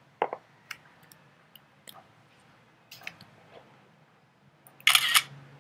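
A few soft key presses and clicks, then, about five seconds in, the Mac's screenshot camera-shutter sound as a window is captured.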